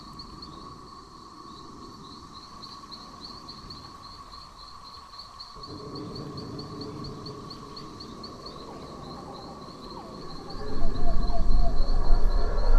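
High insect-like chirping in a steady fast pulse, about five chirps a second, over a steady hum. A loud deep rumble swells in near the end.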